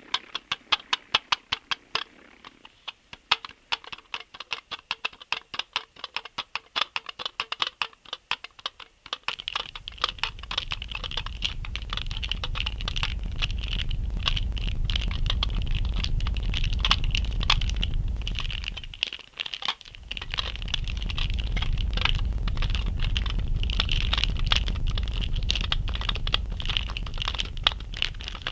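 Rapid, dense tapping and clicking. About a third of the way in, a low steady rumble joins the taps; it breaks off briefly about two-thirds through, then returns.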